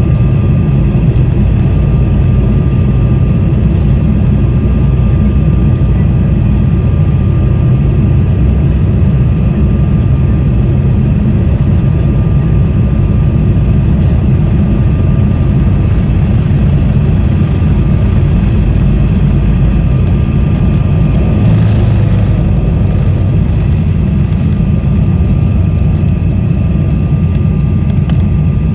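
Embraer E190 jet airliner heard from inside the cabin during takeoff and climb: a loud, steady rumble of the engines and airflow with a thin, steady whine above it.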